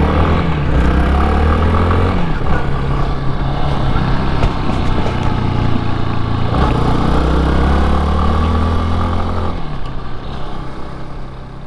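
Yamaha Serow 250's single-cylinder engine pulling the motorcycle along, rising in pitch and dropping at gear changes about two seconds and six and a half seconds in. The sound fades out near the end.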